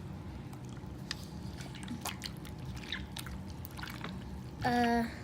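Wet glue-and-borax slime being mixed, with small sticky clicks and a light wet trickle. Near the end comes a brief, louder sound of steady pitch, like a short hum.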